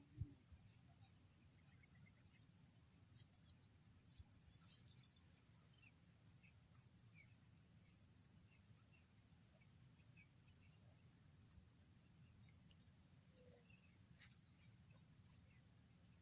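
Faint insect chorus: a steady, high-pitched trilling that steps up and down in level every few seconds, with scattered faint chirps beneath it.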